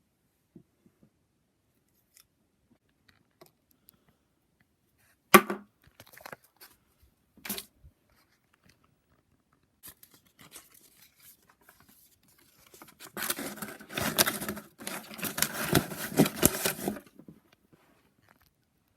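Handling noise: a sharp click about five seconds in, another about two seconds later, a few faint ticks, then several seconds of dense crackling and rustling that stops suddenly near the end.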